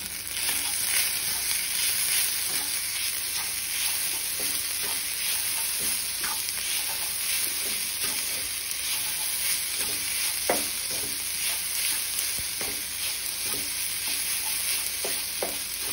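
Fried rice sizzling in a pan as it is stirred and turned with a spatula: a steady hiss with scattered scrapes and taps of the spatula against the pan.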